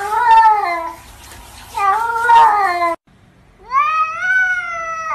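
Cats meowing: two long, wavering meows, then after a short break a second cat gives one long meow that rises in pitch and then holds.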